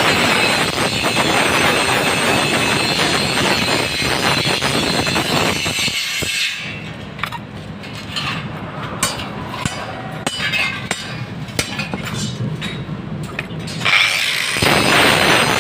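Metal fabrication noise from power tools working steel: a dense, harsh grinding or cutting sound that drops away about six seconds in to a quieter stretch of clicks and taps, then starts up loud again near the end.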